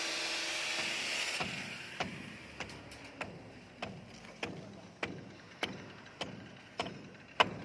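Footsteps on steel rebar mesh laid over wooden formwork: sharp, regular steps about every 0.6 seconds from about two seconds in. Before them a steady hiss cuts off suddenly about a second and a half in.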